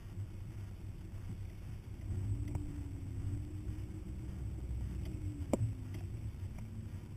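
Hummer running low and steady as it crawls over a rough desert dirt trail. A faint wavering whine comes in about two seconds in, with a few sharp knocks from the rig going over the bumps, the loudest about five and a half seconds in.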